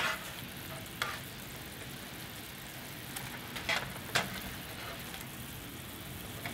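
Hot soy-garlic sauce sizzling softly in a nonstick frying pan as pieces of fried flatfish are turned and coated in it with a slotted spatula. A few sharp clicks of the spatula against the pan: at the start, about a second in, and twice a little before the middle.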